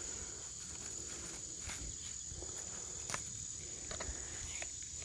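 Steady high-pitched insect trill, likely crickets, with a few faint clicks and rustles; the chainsaw is not running.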